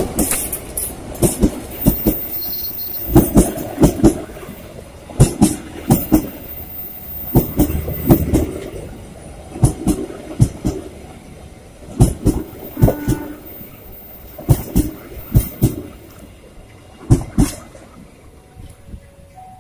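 Kutojaya Selatan passenger train's coaches rolling past, wheels clacking over rail joints in rhythmic clusters of two to four knocks every second and a half to two seconds. The clacks grow fainter near the end as the train moves away.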